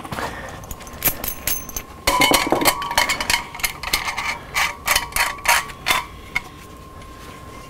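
Small metal clinks and taps, coming in clusters, as a steel conduit fitting and locknut are handled and fitted to a steel electrical box. A faint steady tone runs underneath.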